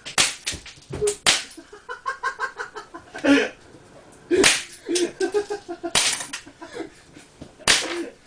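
Crosman 357 CO2 pellet revolvers firing a string of sharp pops, several in quick succession at first, then single shots a second or more apart. Between the shots, a pitched sound pulses about eight times a second.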